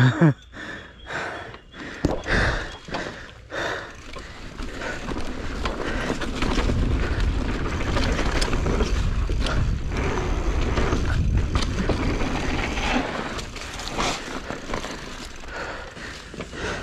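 Mountain bike riding along a dirt trail, with knocks and rattles from the bike over the first few seconds, then a steady rush of wind over the microphone and tyres rolling on dirt as speed builds, easing near the end.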